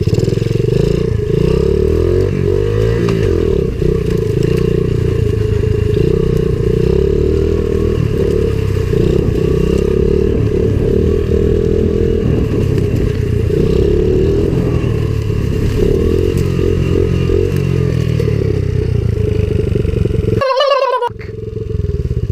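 Small four-stroke pit bike engine running under way on a trail ride, its pitch rising and falling as the throttle changes. Near the end the sound cuts out abruptly and comes back quieter.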